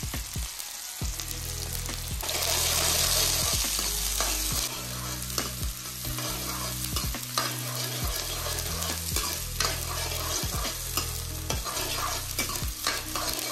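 Chopped onions and chilies sizzling in hot oil in a steel kadai, the tempering for kadhi, while a spoon stirs and scrapes them around the pan with frequent small clicks against the metal. The sizzle swells louder for a couple of seconds about two seconds in.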